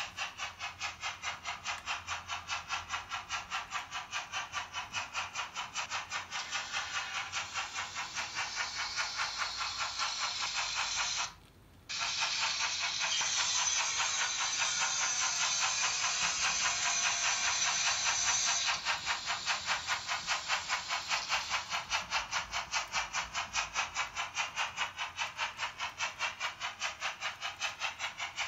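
Märklin H0 BR 94 (Prussian T 16.1) model locomotive's sound decoder playing steam-engine running sound as the model runs: even, rhythmic chuffing with hiss. The sound cuts out for about half a second partway through, and a high steady squeal-like tone is added for about five seconds after it.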